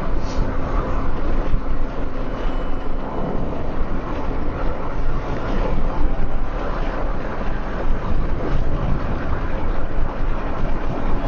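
A car driving along: steady road and engine noise with a deep low rumble and no let-up.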